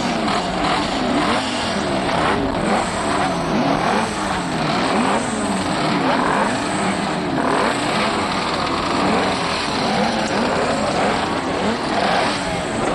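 Several 125cc two-stroke Grand Prix racing motorcycles running together, their engines blipped up and down over and over in overlapping rising and falling revs.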